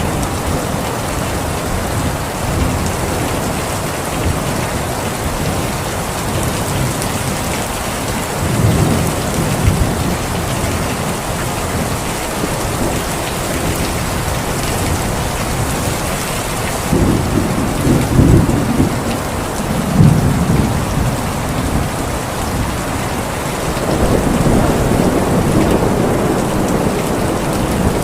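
Steady rain falling, with several rolls of low thunder rumbling through it, the strongest a double roll around the middle.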